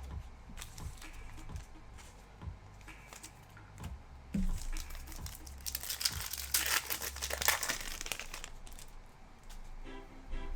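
A trading-card pack's foil wrapper crinkling and tearing open, loudest between about six and eight and a half seconds in, with small ticks of cards being handled around it. Faint music comes in near the end.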